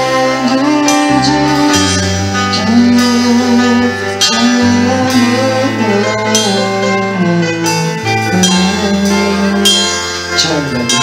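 Music playing: a song with long held bass notes that change every second or two under a melody line.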